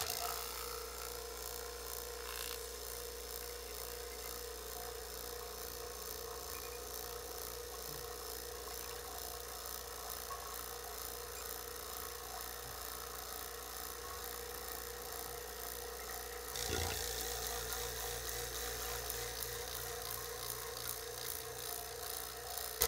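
Electric HVAC vacuum pump starting up and running steadily, with a steady hum, while evacuating a dry glass jar through a hose; the pump is cold and its oil is not fresh. It gets louder and brighter about 17 seconds in.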